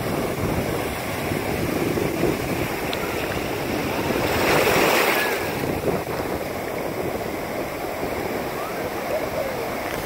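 Ocean surf breaking and washing through shallow water in a steady rush, swelling to a louder wave wash about four to five seconds in.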